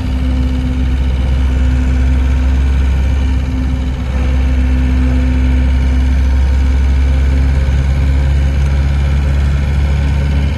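Vehicle engine running with a steady low drone. A faint higher tone shifts slightly about seven seconds in.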